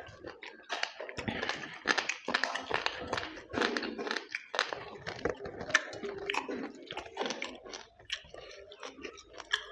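A person chewing and biting food close to the microphone, with repeated wet mouth clicks and smacks.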